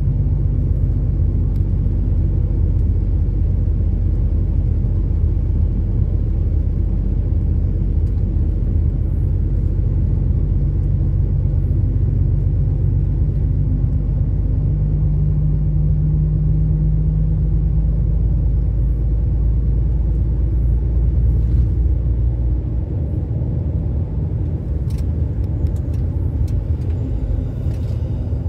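Engine of a moving road vehicle running steadily under a heavy low rumble of wind and road noise. Its note rises for a few seconds around the middle, and the deepest rumble eases a little about two-thirds of the way through.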